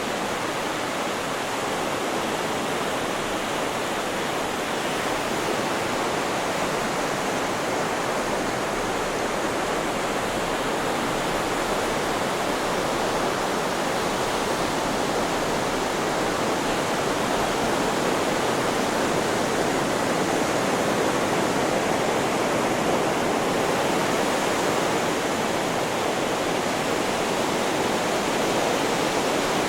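Steady white noise: an even, unchanging hiss with no rise and fall of waves.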